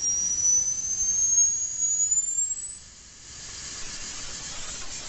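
Homemade transistor multivibrator sound generator through its loudspeaker box: a high-pitched whistling tone that climbs steadily in pitch as the supply voltage is turned up, until it vanishes about three seconds in, leaving a fainter high hiss.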